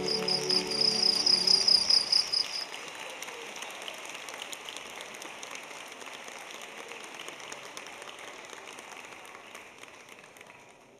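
A cricket chirp sound effect, a rapid pulsed high trill, runs for the first two and a half seconds. Audience applause carries on under it and slowly fades out.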